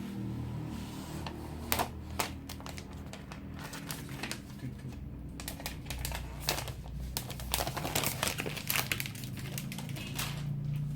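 Protective plastic wrap being peeled and handled off a new iPad, crinkling and crackling in many irregular small clicks.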